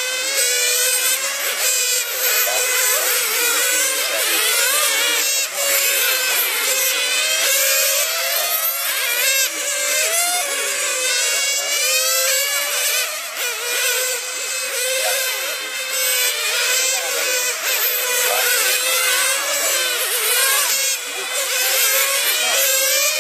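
Several radio-controlled racing cars' small high-revving motors buzzing as they lap the track, each pitch rising and falling over and over as the cars accelerate and brake through the corners.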